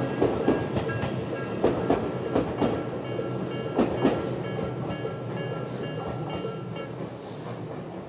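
Tobu Utsunomiya Line level crossing: its electronic warning bell (Tobu 'sound B') rings while the tail of a Tobu 20400 series train clatters through, wheels clicking over the rail joints. The clicks fade as the train moves away, and the bell stops about seven seconds in once the train has cleared.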